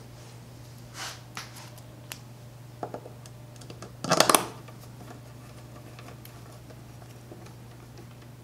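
Light clicks and taps from a small screwdriver and hand-handled parts at the back of a 3D printer, with one louder short clatter about four seconds in, over a steady low hum.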